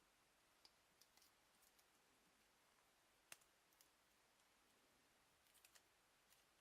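Faint, scattered clicks and ticks of hard plastic from a 6-inch Marvel Legends Ant-Man action figure and its packaging being handled, over near silence, the sharpest click about three seconds in and a small cluster near the end.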